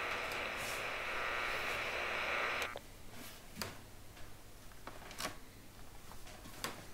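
A steady hiss cuts off suddenly a little under three seconds in, leaving faint clicks and soft rustling as a hand feels among newspapers and kindling stored under a shelf.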